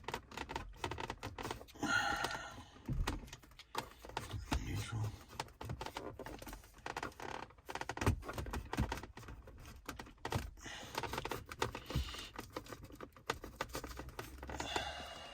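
Irregular light clicks and knocks of plastic and metal being handled as the old factory cassette head unit is worked out of the car's dash.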